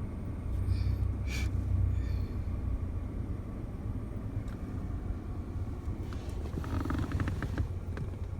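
Car engine and road rumble heard from inside the cabin, low and steady, with a single click about a second in and a quick run of small clicks and rattles about six seconds in.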